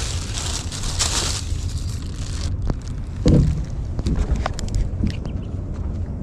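Thin plastic bag crinkling for about two and a half seconds as a small fish is pushed into it, over a steady low rumble of wind on the microphone. A few light knocks follow.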